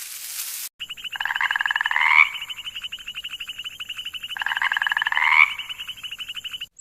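Frogs calling: a rapid, steady pulsing trill, with two louder calls that rise in pitch at their ends, one about a second in and another about four seconds in. A short hiss comes before the calls start.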